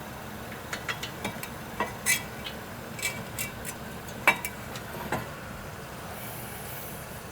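Scattered light metallic clicks and clinks as the caliper bracket bolts are started by hand on a front brake assembly, the sharpest clink a little over four seconds in.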